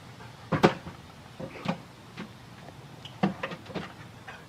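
A series of irregular sharp knocks, the loudest about half a second in.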